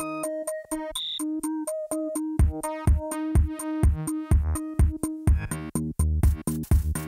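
Electronic background music: synthesizer notes over an even drum-machine beat. A deep bass beat comes in about two and a half seconds in, and the music fills out near the end.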